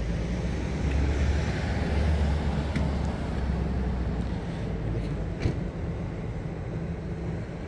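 Steady low hum of an idling vehicle engine, with a short click about five and a half seconds in.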